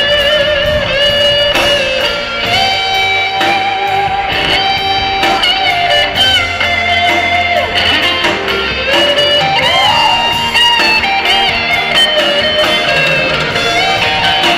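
Live rock band playing through a PA, an electric guitar carrying a lead melody of long held notes that bend and waver over the backing band.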